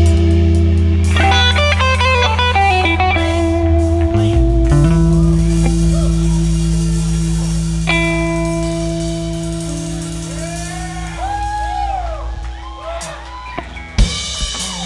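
Live rock band with electric guitar, bass and drums playing an instrumental jam. A quick guitar run comes a second or two in, then held notes slowly fade under bending, swelling guitar tones, before a loud hit near the end as the band comes back in.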